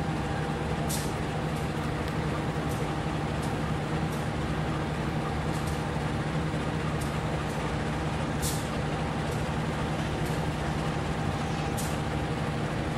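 A large diesel engine idling steadily, a constant low hum that holds unchanged throughout, from the standing passenger train. A few short, faint high hisses are heard now and then.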